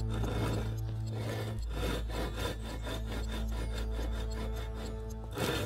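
Freshly sharpened fine Japanese ryoba pull saw crosscutting a wooden board, its teeth rasping through the wood in a steady run of quick back-and-forth strokes. A steady low hum runs underneath.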